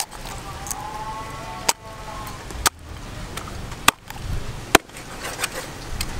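Large kitchen knife chopping through a raw whole chicken onto a wooden block: five sharp knocks about a second apart.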